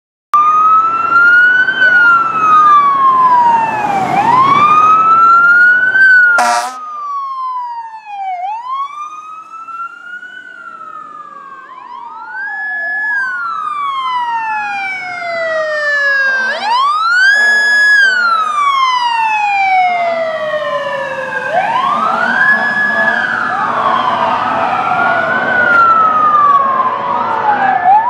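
Fire truck sirens on emergency vehicles responding with lights and sirens, two or more wailing at once, each rising and falling in pitch. Short air-horn blasts come about six seconds in and again past halfway, and the sirens grow fainter for a few seconds a third of the way in before getting louder again.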